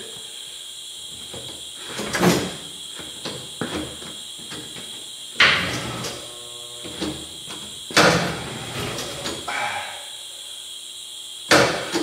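Knocks and clunks from a heavy skid steer tire being handled on a tire-changing machine: four loud thumps a few seconds apart with smaller clunks between, over a faint steady high whine.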